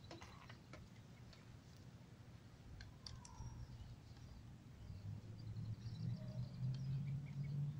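Light clicks and handling of a drone's battery being unplugged and plugged back in, with faint high chirps; a low hum grows louder over the last few seconds.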